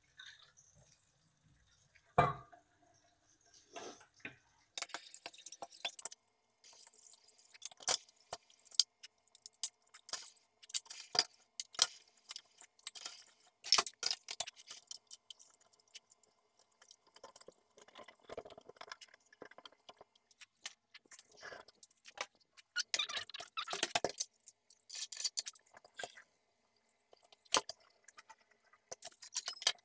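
Steel pots, bowls and utensils clinking and clattering against each other and the counter as they are washed at a kitchen sink and set down.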